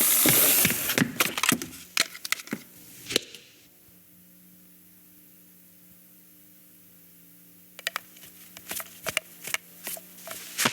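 Film sound effects with no music: a run of sharp knocks and cracks, then a few seconds of faint low hum, then scattered quick taps and clicks from about eight seconds in.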